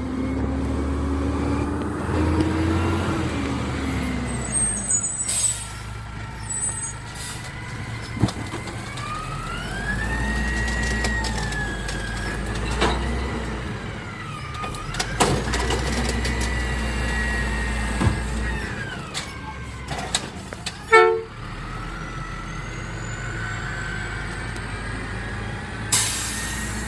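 Freightliner Condor garbage truck with an Amrep body, its diesel engine running with a pitch that rises and falls several times as it revs. Scattered clanks and knocks, the loudest about 21 seconds in, and a couple of short air hisses.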